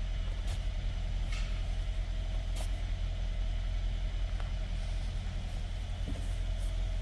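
Mercedes-Benz S-Class engine idling steadily, a low even hum, with a few faint light clicks.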